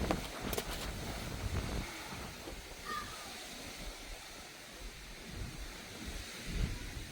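Wind buffeting the microphone in uneven gusts, heaviest at the start, with a few faint clicks under a second in.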